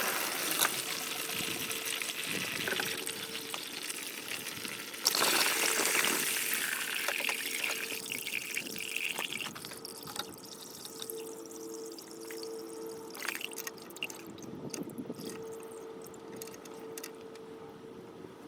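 Engine coolant pouring and trickling out of a VW Golf Mk1's opened thermostat housing as the old thermostat comes out. The flow turns into a louder gush about five seconds in, then slowly eases to a trickle.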